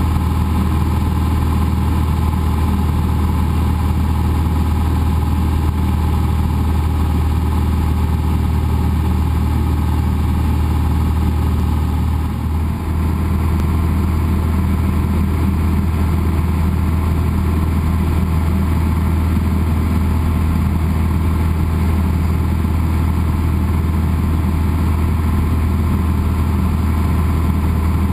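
Cessna 172's piston engine and propeller droning steadily in level flight, heard from inside the cockpit, with a brief dip in level about halfway through.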